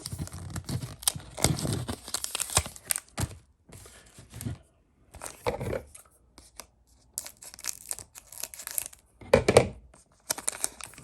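Foil wrapper of a Pokémon Vivid Voltage booster pack being torn open and crinkled, in a series of irregular rustling bursts, the loudest about nine and a half seconds in.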